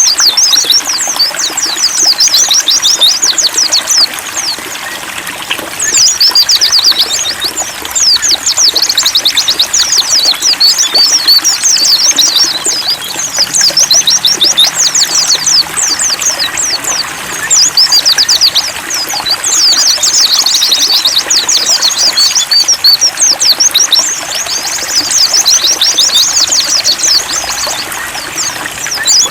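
White-eyes (pleci) singing in long bursts of fast, high chattering song, each a few seconds long with short breaks between, over a steady trickle of running water.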